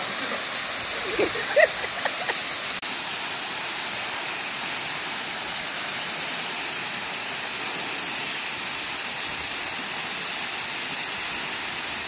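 A waterfall pouring over rock into a shallow pool: a steady, even rush of falling water. A short call from a person's voice rises above it about a second and a half in.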